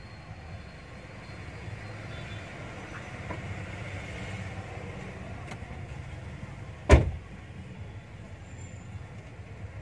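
Steady low rumble inside a car, with one loud heavy thud about seven seconds in, a car door being shut.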